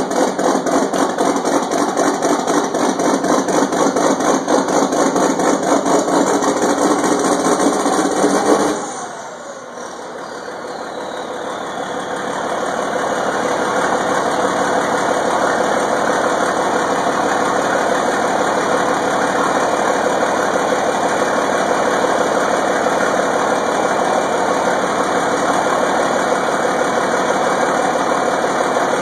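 John Deere 4640's turbocharged six-cylinder diesel running just after start-up, first at raised revs. About nine seconds in the revs drop suddenly with a falling whine, and over the next few seconds the engine settles into a steady idle.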